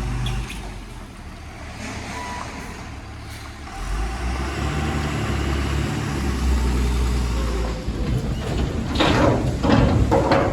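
Heavy diesel engine of earth-moving machinery running, the low rumble getting louder about four seconds in as it works under load, with several loud, rough bursts of noise near the end.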